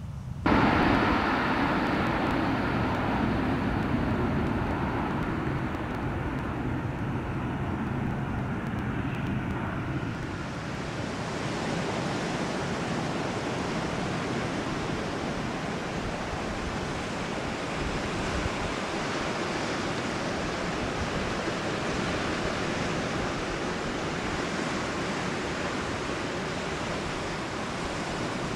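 Twin-engine high-wing propeller airliner passing low overhead, its engines a loud steady drone that starts abruptly. About ten seconds in it gives way to a steady even rushing noise of wind and surf.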